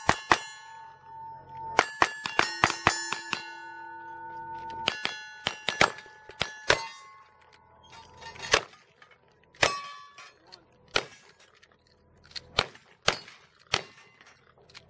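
Gunshots in a cowboy action shooting shoot-off, each followed by the ringing clang of a steel target being hit. Quick strings of shots come in the first seven seconds, then single shots about a second apart.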